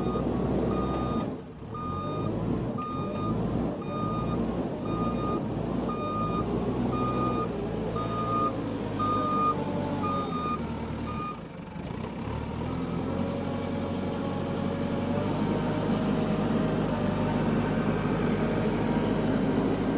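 Backhoe loader's reversing alarm beeping about once a second over its diesel engine running. The beeping stops about eleven seconds in, and the engine keeps running with its pitch rising and shifting.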